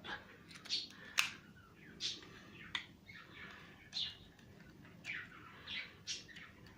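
Birds chirping in the background, short calls about once a second, with a couple of sharp clicks in between.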